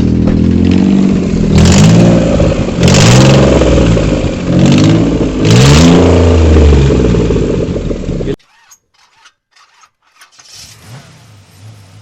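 Maruti Suzuki Alto 800's three-cylinder petrol engine revved again and again, very loud from an exhaust leak at the manifold, whose studs have broken. The revs rise and fall about five times, then the sound cuts off abruptly about eight seconds in, leaving only a faint low pulsing.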